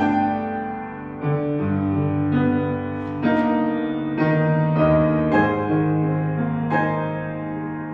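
Piano playing slow, sustained chords, with a new chord struck about every second.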